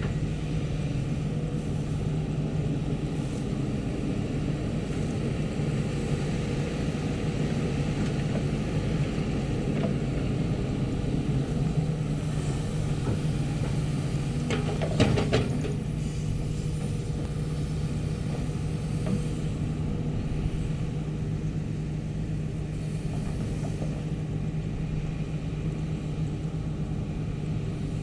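Sany SY215C excavator's diesel engine running steadily, with a brief cluster of knocks about halfway through.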